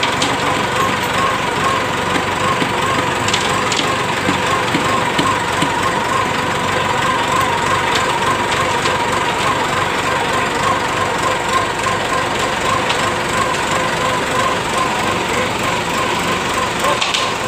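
Diesel engine of a self-loading concrete mixer truck running steadily as the drum turns to discharge concrete down the chute, with a wavering whine that pulses several times a second over the engine noise.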